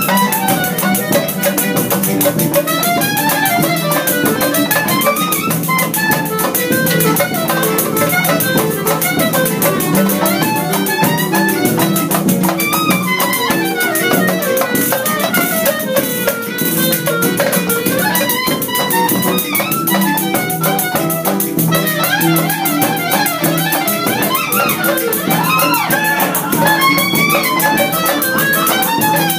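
Small acoustic ensemble playing samba: nylon-string guitar strumming a busy rhythm and upright double bass holding the low line, under a lead melody with sliding notes.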